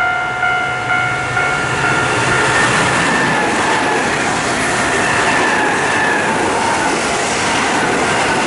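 Nankai electric train passing at close range, its running noise loud and steady, with a whine that falls in pitch. The level-crossing warning bell, ringing about twice a second, fades under it in the first couple of seconds.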